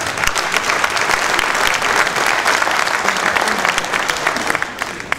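Audience applauding, a dense patter of many hands clapping that swells and then fades away near the end.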